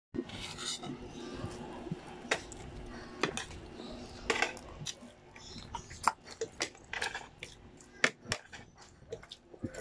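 Close-up eating sounds of a person chewing and sucking on cooked chicken feet with rice: wet lip smacks and sharp mouth clicks come irregularly, several a second at times.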